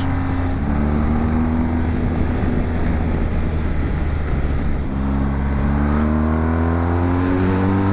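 BMW R 1250 GS flat-twin motorcycle engine running on the road with wind rush over the microphone. The engine note steps down about five seconds in as the bike slows, then climbs slowly.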